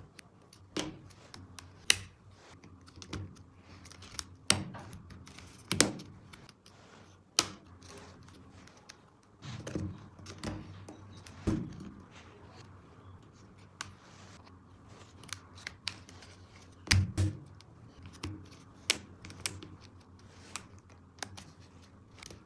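Irregular clicks, clacks and snaps of hard plastic toy track pieces being handled and fitted together, with several loud knocks among lighter taps.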